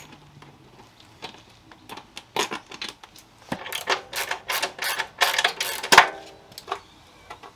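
Hand work on a motorcycle's parts under the seat: a run of irregular metallic clicks and rattles, mostly in the middle of the stretch, with the loudest click about six seconds in.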